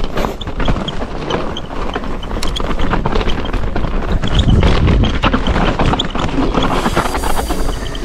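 Scott Ransom mountain bike rolling fast down a dirt trail: tyres on the dirt with a dense clatter of knocks and rattles from the bike over the bumps, over a steady low rumble of wind on the microphone.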